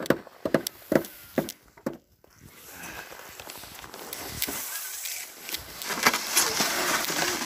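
Footsteps on snow, about two steps a second. After a brief drop-out about two seconds in, a steady rustling hiss on the microphone takes over, growing louder towards the end.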